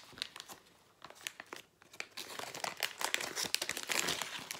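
Plastic packaging crinkling and rustling as small kit items are handled and pulled out of a small plastic bag, in a run of quick crackles that gets busier about halfway through.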